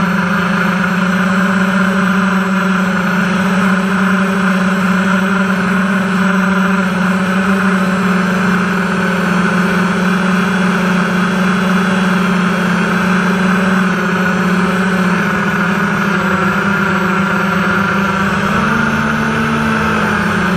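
Electric motors and propellers of an FPV model aircraft, heard from the camera strapped to it: a loud, steady hum whose pitch briefly wavers and shifts near the end.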